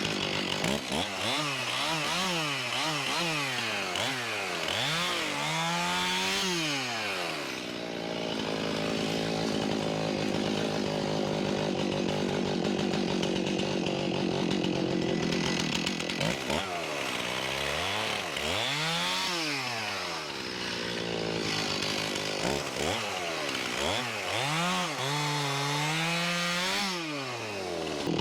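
Stihl chainsaw bucking a red oak log: the engine revs up and down repeatedly, then holds a steady pitch for several seconds while cutting, and does this twice.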